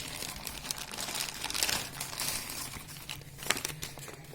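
Sturdy parcel packaging crinkling and tearing as it is pulled open by hand, in irregular crackles, with a sharp click about three and a half seconds in.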